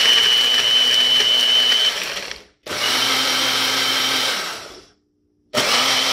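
An 850-watt Airpher personal bullet blender blending frozen berries, bananas, nuts and milk in short runs of about two seconds, the cup pressed down and released three times. Each run is a steady high whine over the motor hum, starting abruptly and winding down when the cup is released.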